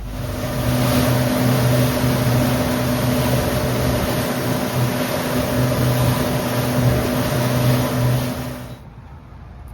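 An engine running steadily at speed under a loud rush of wind and noise, which cuts off abruptly near the end.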